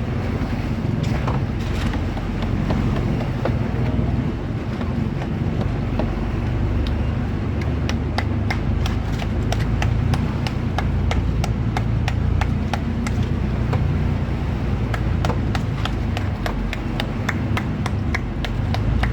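A boat engine runs steadily with a low drone. From about seven seconds in until near the end, a run of rapid, irregular clicks and knocks plays over it.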